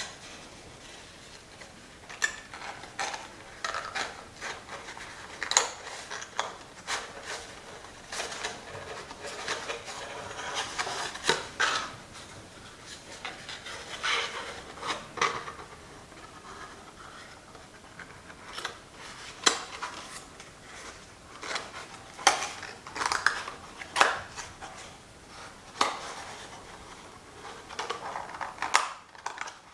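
Thin kraft cardboard being folded and handled: irregular rustling and rubbing, with many sharp clicks and snaps as the box's flaps and rounded tabs are pressed and tucked into place.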